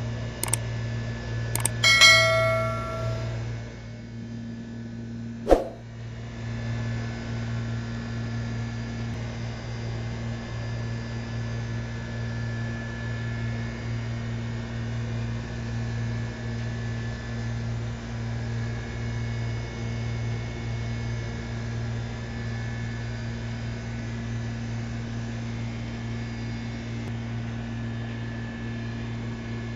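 A few sharp clicks and one metallic clang about two seconds in that rings for over a second, with another click a few seconds later; a steady low electrical hum runs underneath throughout.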